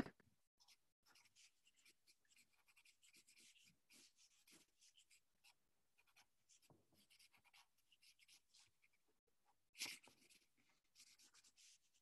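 Faint scratching of a graphite pencil on paper, many short sketching strokes, with one brief louder sound near the end.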